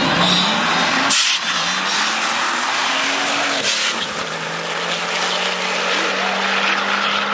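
Two drag-race cars, a supercharged Mercedes C32 AMG and a nitrous-fed Golf-engined racer, launching off the line and accelerating hard down the quarter-mile strip. The sound jumps abruptly about a second in and again near four seconds. After that a steady engine drone carries on, rising slightly in pitch.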